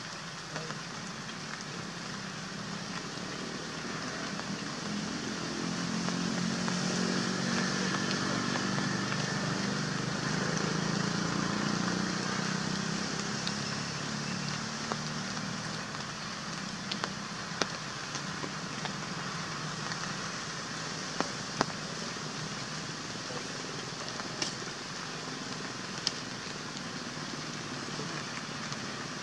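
Steady rain falling, with a few sharp ticks of drops in the second half. A low hum swells and fades around the middle.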